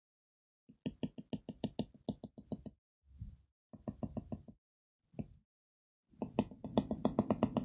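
Rapid light taps of a stylus on a tablet screen, about eight a second, in several short runs with pauses between, as a dashed line is drawn stroke by stroke.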